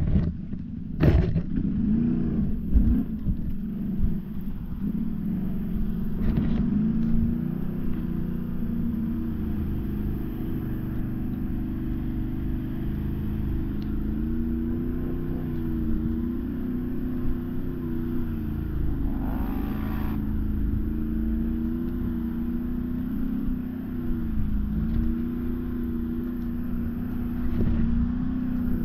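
Can-Am ATV's V-twin engine running, its pitch rising and falling again and again as the throttle is worked, with a few sharp knocks in the first few seconds.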